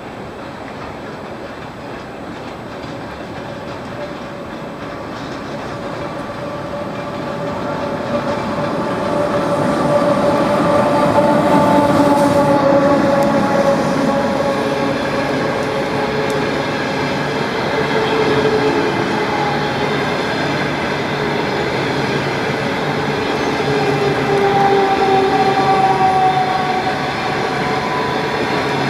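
Train passing, growing louder over the first ten seconds and staying loud, with a whine of steady tones that drift slowly in pitch over the rumble of the wheels.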